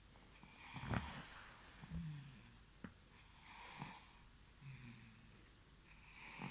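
A young baby snoring in sleep: a short, low snore about every three seconds, with breathy wheezing breaths in between.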